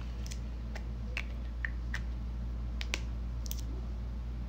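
Scattered light clicks and taps, about eight, a few with a short squeaky tone, over a steady low hum.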